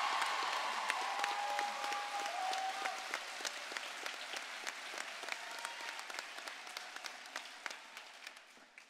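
An audience applauding, the clapping gradually thinning and fading, dying out near the end.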